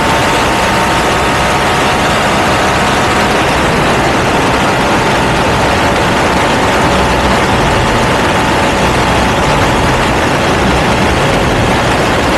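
Ducati V2 motorcycle with a Termignoni exhaust running loud at a steady engine speed, with no revving up or down.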